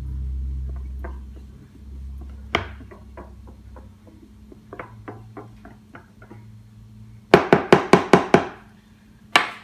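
A whisk working through cornstarch in a clear plastic tub, with light scattered ticks as it scrapes and taps inside, then a quick run of about eight sharp knocks near the end as it is rapped against the tub to shake off the starch, followed by one more knock.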